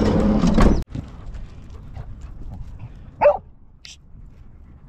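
A van's rear door swinging shut, a loud noise that ends abruptly just under a second in. Then a quieter outdoor background, with one short dog bark about three seconds in.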